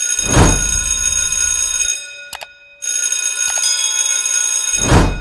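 Channel intro sound effects: a whoosh, then sustained high ringing tones that break off briefly about two seconds in. Two pairs of sharp mouse-click sounds, about two and a half and three and a half seconds in, go with the subscribe and bell-button animation, and a second whoosh comes near the end.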